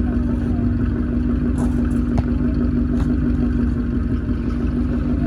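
V8 car engine running at a steady speed, with a constant low hum and rumble and a few faint ticks. It is being listened to for a misfire after a P0308 code (cylinder 8) that new coil packs and spark plugs have not cleared.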